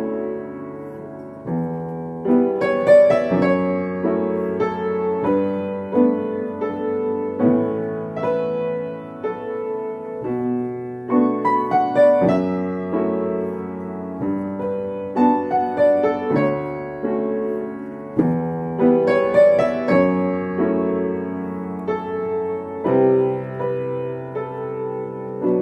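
Solo piano playing a slow piece: melody notes and chords over low bass notes that change every couple of seconds.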